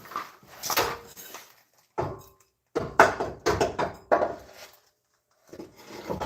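Irregular metal clunks and scraping as a cast-iron exhaust manifold is worked into place against a GM 4.3L V6 cylinder head, in short bursts with brief pauses.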